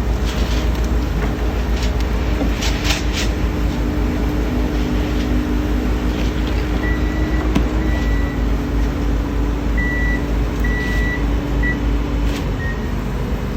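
Heavy construction machinery engine running steadily with a low rumble and a hum, with a few sharp metallic knocks about two to three seconds in. From about seven seconds in, a series of short, high warning beeps sounds intermittently.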